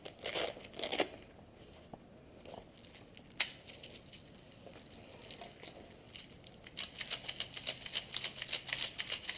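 A few rustles and one sharp click, then from about seven seconds in a fast, uneven run of small clicks from airsoft gear being worked by hand.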